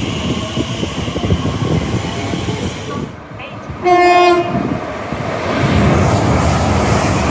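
Train running noise, then one short horn blast of a single tone about four seconds in, followed by the rumble and wheel noise of a passing train building up.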